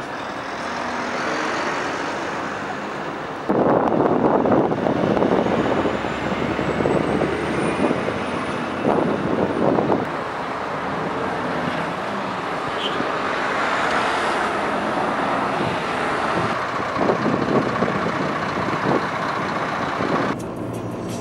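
Highway traffic going by: steady tyre and engine noise of cars and lorries, swelling louder as vehicles pass, most strongly about four seconds in and again around nine and seventeen seconds.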